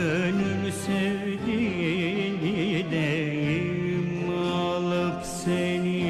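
Live Turkish classical (sanat) music from a small ensemble of cello, violin and ud, playing a melody in makam Uşşak with wavering, sliding held notes.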